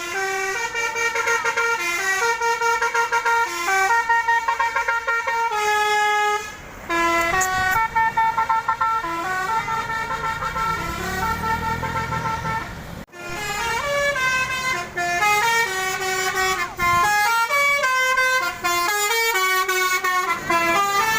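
Basuri telolet bus horn with roof-mounted trumpets playing a stepped tune, one pitched horn note after another in quick succession. It cuts out suddenly about 13 seconds in and starts up again, with a low rumble beneath the tune just before the cut.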